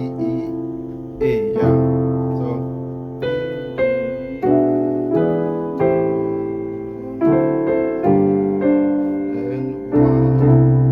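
Keyboard (piano sound) playing a turnaround chord progression in C: about a dozen full, sustained chords struck one after another, each ringing and fading before the next change.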